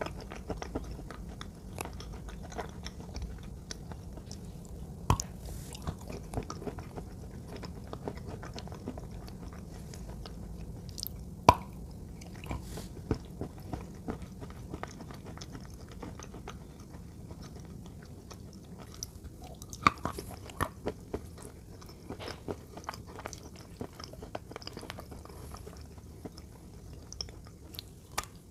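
Close-up chewing and biting of hard white blocks coated in a wet brown paste: a run of crunches and clicks over steady chewing, with a few sharper cracks, the loudest about eleven seconds in.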